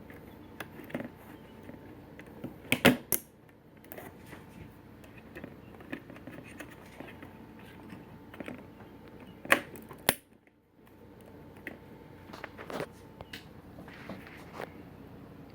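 Sharp plastic-and-metal clicks and knocks from a CPU cooler fan being fitted onto a motherboard by hand, the loudest a pair about three seconds in and another near ten seconds.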